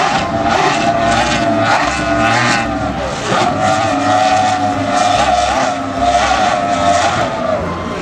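Racing powerboat's outboard engines running at high speed on a fast pass over water, a loud, continuous whine whose pitch wavers up and down.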